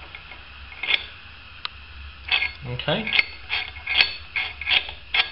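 A bolt clicking and rattling against metal as it is worked loosely in an engine-mount bolt hole that has been drilled clean of its stripped thread. The clicks come irregularly, most of them in the second half.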